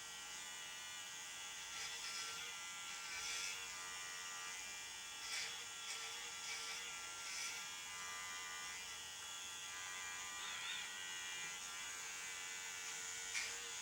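Electric dog grooming clippers running with a steady buzz, with a few short louder strokes.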